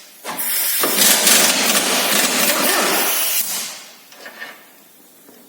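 Pneumatic impact wrench hammering for about three seconds on a very tightly fastened suspension bolt, with a short burst first, then a sustained run that winds down.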